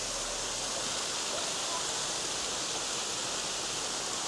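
Steady, even rushing of running or falling water.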